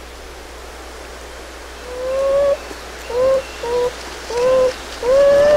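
A coypu (nutria) calling: five short pitched calls, each rising slightly in pitch, starting about two seconds in, with the last one the longest. A faint steady hiss and hum lies under them.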